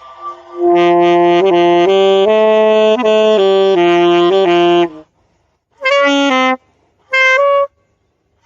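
Saxophone practice by a rusty amateur: a phrase of held notes stepping up and down for about four seconds, then two short notes after a pause.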